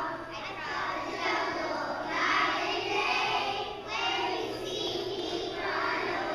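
A group of preschool children singing a song together in chorus.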